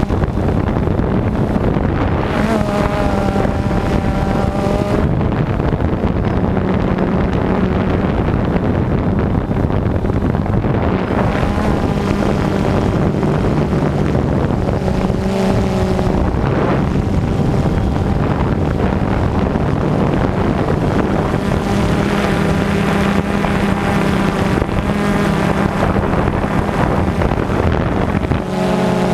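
Rotors and motors of a radio-controlled aircraft heard from its onboard camera: a steady hum whose pitch shifts up and down as the craft manoeuvres, mixed with heavy wind rush on the microphone.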